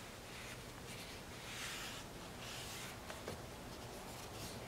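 Microfiber towel wiping over a freshly applied screen protector on a car's digital gauge cluster screen: a few faint, soft swishing strokes as the film is dried and cleaned.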